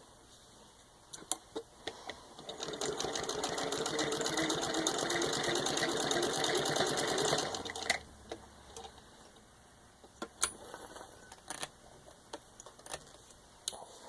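A 1921 Singer 66-1 sewing machine stitching through six layers of denim. It runs at a fast, even clatter for about five seconds, starting a couple of seconds in, with a few sharp clicks before and after.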